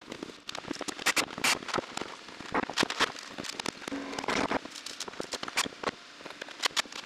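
Carpentry work on a wood-framed wall: a dense, irregular run of sharp clicks, taps and knocks, with a brief low hum about four seconds in.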